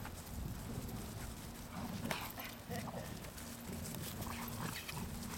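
Golden retrievers and their six-week-old puppies wrestling on dry leaves and grass: irregular scuffling paws and rustling leaves, with a few brief dog noises.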